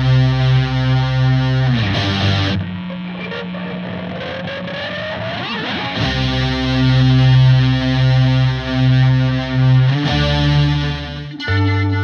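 Two distorted electric guitars playing together, ringing sustained chords, then about two seconds in giving way to a noisy, scraping passage with a slowly rising gliding note; the full chords return about six seconds in and break off again near the end.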